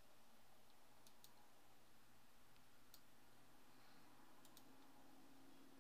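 Near silence: faint room tone with a few soft computer mouse clicks, two of them in a quick pair, as fields are selected and removed by right-click menu.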